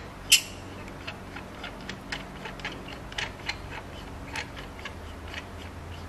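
Small, irregular clicks and ticks from hands twisting the threaded stand-mount fitting on a USB microphone body, with one sharper click about a third of a second in.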